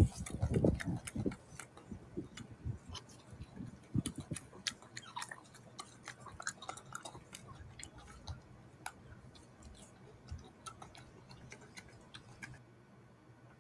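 Golden snub-nosed monkey eating peeled citrus fruit close to the microphone: a string of wet mouth clicks and chewing ticks, with a few louder low bumps in the first second.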